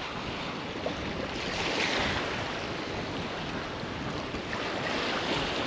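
Wind buffeting the microphone over the rush of the open sea around a drifting boat: a steady noise that swells a little about two seconds in.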